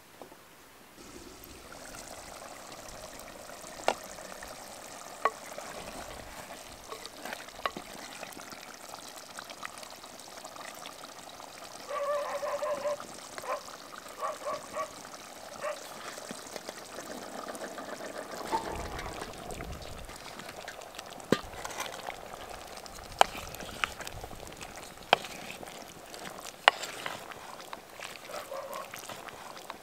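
Food cooking in a clay pot over an open wood fire: a steady hiss of liquid being poured in and simmering, with scattered sharp clicks and knocks. A wooden spoon stirs chickpeas in the pot near the end.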